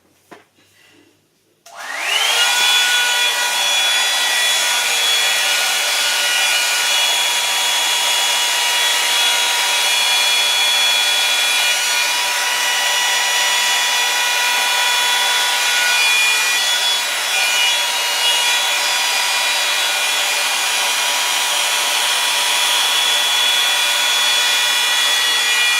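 Revlon One-Step hair dryer brush switched on about two seconds in, its motor whining up to speed, then blowing steadily: rushing air with a constant high motor whine.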